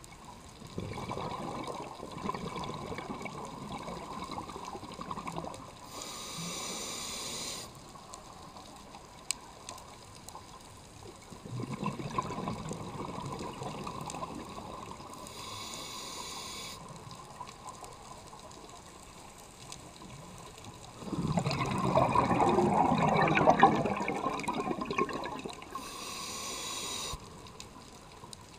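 Scuba breathing through a regulator underwater: three long bursts of exhaled bubbles, the last the loudest, each followed by a shorter, higher hiss of inhaling through the regulator.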